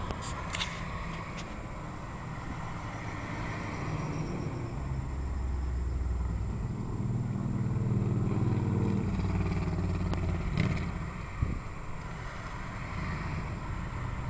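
A motor vehicle's engine passing: a low rumble that grows louder toward the middle and fades away, with a couple of short knocks near the end.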